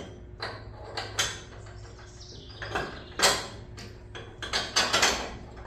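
Metal clinks, knocks and scrapes as an air bag suspension bracket and its bolts are worked into place on a truck frame: several short bursts, the loudest about three seconds in, over a steady low hum.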